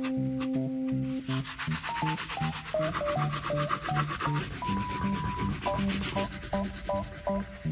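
Rapid, evenly repeated rubbing and scratching of paper, starting about a second in, over light background music with a simple stepping melody and bass.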